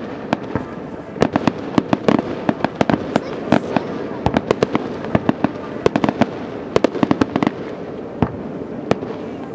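Fireworks display: a rapid, irregular string of sharp bangs and crackling reports from bursting aerial shells, thinning out near the end.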